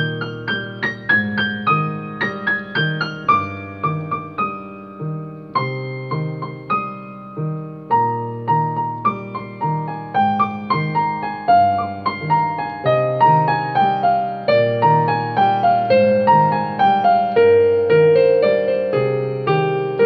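Solo piano being played: a repeating low left-hand pattern under a right-hand melody, with runs of notes stepping downward in the second half.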